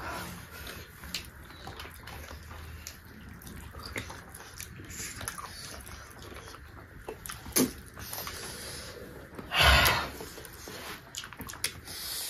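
Close-miked mukbang eating sounds: wet chewing and lip-smacking as rice and chicken gizzard are eaten by hand, with scattered small clicks. A sharp louder smack comes about two-thirds of the way in, and a short loud burst of noise follows near the end.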